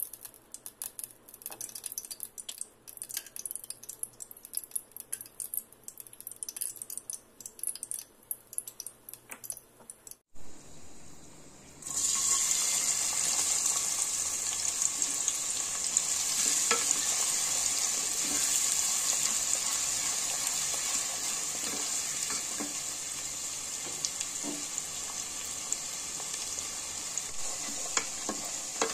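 Hot cooking oil crackling and popping in an aluminium pot for the first ten seconds or so. About twelve seconds in, chopped onion goes into the oil and it breaks into a loud, steady sizzle of frying, with the odd scrape of a spatula stirring.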